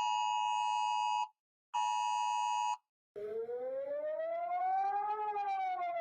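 Emergency-alert-style alarm sounds. A steady electronic alert beep breaks off about a second in and a second beep of about a second follows. After a short gap, a siren wail rises slowly for about two seconds and starts falling near the end.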